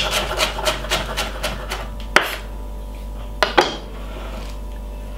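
Chef's knife chopping spinach on a wooden cutting board: rapid strokes, about four a second, for a couple of seconds, then three sharper single knocks on the board.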